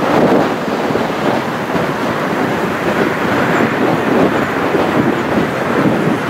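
Airbus A330's jet engines at takeoff thrust, heard from across the airfield as a steady rough rumble while the airliner rolls and lifts off, with strong gusty wind rushing over the microphone.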